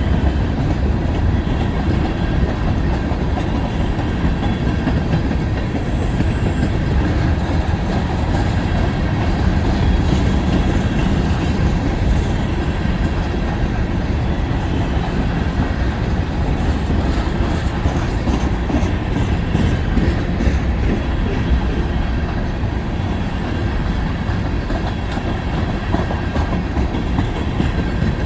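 Freight cars of a long mixed freight train rolling past: a steady rumble of steel wheels on rail, with scattered clicks from the wheels and trucks.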